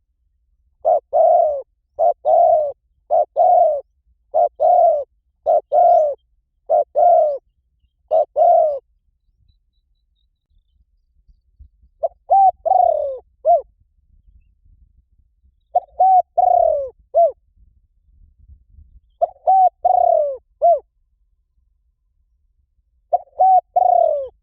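Spotted dove cooing: first a quick series of seven short coo phrases about a second apart, then four longer phrases of several coos a few seconds apart, each ending in a short clipped note.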